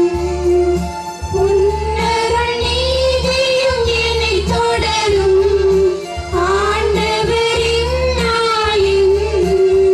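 A woman singing a slow Tamil devotional hymn with long held notes, over a steady low instrumental accompaniment. The phrases break briefly about a second in and again about six seconds in.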